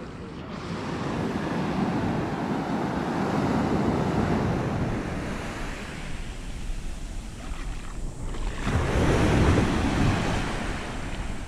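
Small waves breaking and washing up over a sandy beach. The rush of surf swells over the first two seconds, eases, then surges again, louder, about nine seconds in.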